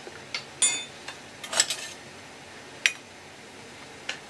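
Metal ladle clinking against the side of a metal pot while stirring simmering clam meat. There are about seven sharp clinks, with one ringing briefly about half a second in and a quick cluster around a second and a half in.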